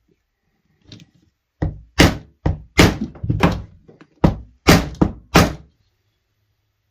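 Hammering, about ten hard blows in quick succession over some four seconds, after a couple of light taps.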